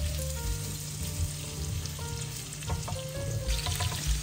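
Shrimp and crushed garlic sizzling as they sauté in melted butter in a frying pan, stirred with a silicone spatula that scrapes and taps against the pan.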